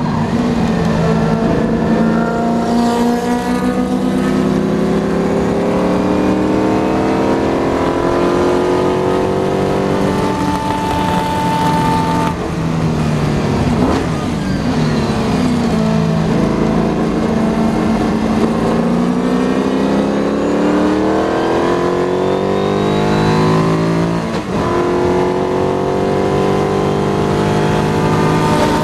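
McLaren M10B Formula 5000 car's 5-litre Chevrolet V8 at racing speed, heard from on board. The engine note climbs and falls repeatedly, with several sudden breaks in pitch.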